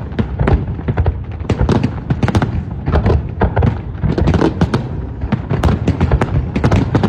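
Fireworks going off in quick succession: many sharp bangs and booms, several a second, over a continuous low rumble of echoing explosions.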